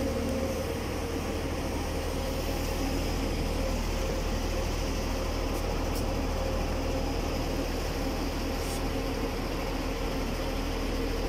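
Airport shuttle bus idling at the stop: a steady low engine hum with a faint steady tone above it.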